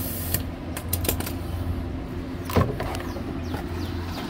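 Parts and tools being handled in a car's engine bay: several light metallic clicks in the first second or so, then one louder clunk about two and a half seconds in, over a steady low hum.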